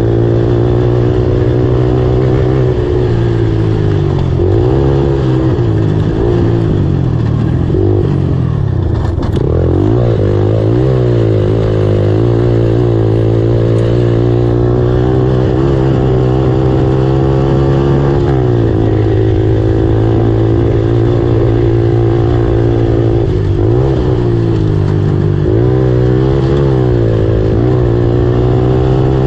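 Race ATV's engine at full racing effort, heard close up from on board. The pitch rises and falls with the throttle, and about nine seconds in it drops low and climbs again.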